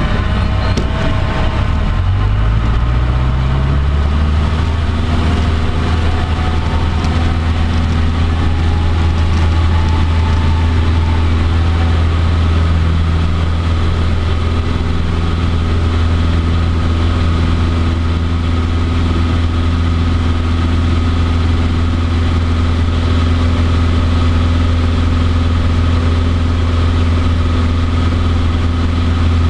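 Cessna 150D's Continental O-200 four-cylinder engine and propeller heard from inside the cabin. Over the first few seconds the engine rises in pitch as power comes up, then runs steadily at takeoff power through the takeoff roll and climb.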